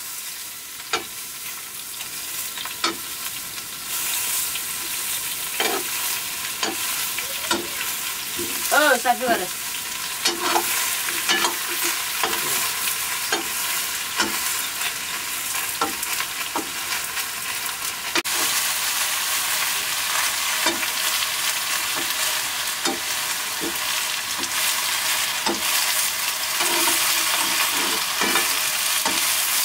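Sliced vegetables sizzling in oil in a black wok while a metal ladle stirs and scrapes the pan, giving frequent short clicks over a steady hiss. A brief wavering call is heard about nine seconds in, and the sizzle grows louder about two-thirds of the way through.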